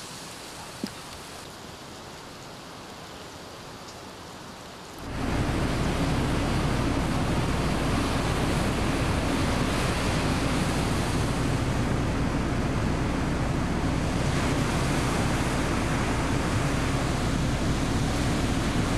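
Strong wind over a rough sea, rushing and buffeting the microphone with a heavy low rumble; it starts abruptly about five seconds in, after a quieter steady hiss.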